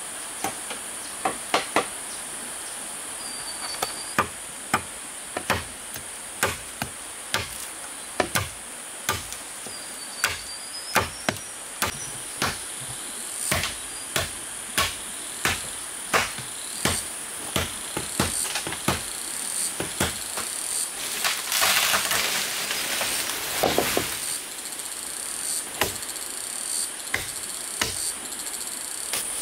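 Repeated strikes of a tool on wood, roughly one a second, as in hammering or chopping during building work. A steady high buzz of insects runs underneath, and there is a brief rasping noise about two-thirds of the way through.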